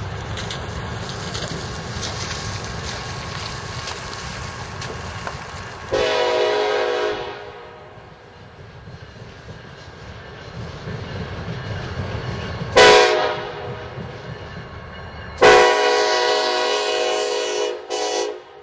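Diesel freight locomotive's air horn sounding as the train approaches: a blast of about a second, a short toot several seconds later, then a long blast of nearly three seconds near the end. The low rumble of the diesel engines runs underneath.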